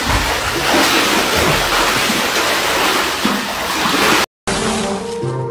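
Water splashing and sloshing in an inflatable paddling pool as a man thrashes face-down in it, a loud steady rush that cuts off suddenly about four seconds in. Music with steady notes follows.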